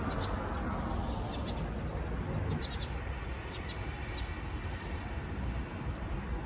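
Steady rumble of road traffic passing, with several short, high bird chirps over it during the first four seconds or so.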